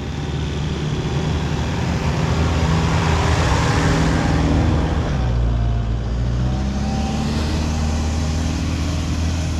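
Toyota Prado 4WD driving through soft sand, its engine pulling under load with the sound of tyres churning sand. It grows louder as it comes close and passes by about four to five seconds in, then the engine note drops and climbs again as it drives on.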